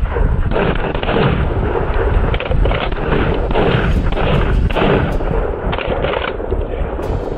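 Volley of shotgun fire from several hunters shooting together, about a dozen shots in quick, overlapping succession.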